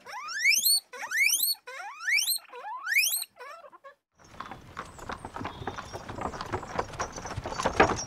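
A guinea pig wheeking: about five short, loud squeals in the first four seconds, each rising sharply in pitch. They are followed, after a brief pause, by a steady stretch of crackling, clicking noise.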